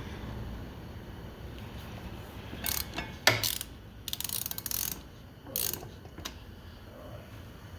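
Socket ratchet clicking in a few short spells, with a sharp metal clack a little over three seconds in.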